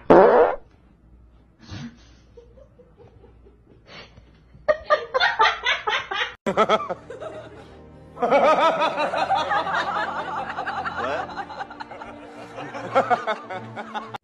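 Laughter in quick repeated bursts, with music underneath, after a short loud sound at the very start.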